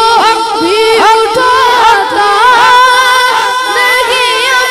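Devotional naat singing: a voice holding long, sustained notes with frequent ornamental slides in pitch.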